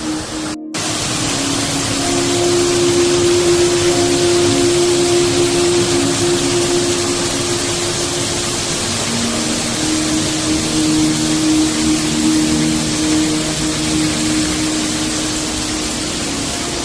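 Slow background music of long held notes over a steady rushing noise, with a brief dropout to silence about half a second in.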